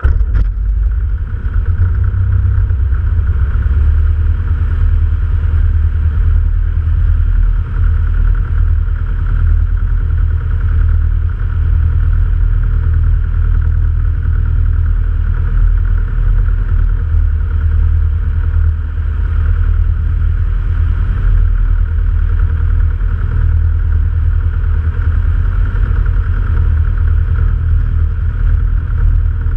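Jabiru light aircraft's engine and propeller running steadily on the ground, with heavy deep rumble. It comes in abruptly at the very start.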